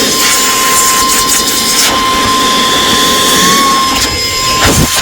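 Saker 3-in-1 cordless handheld mini vacuum running in air-blower mode: its brushless motor gives a steady high whine over a rush of blown air. A brief knock comes near the end.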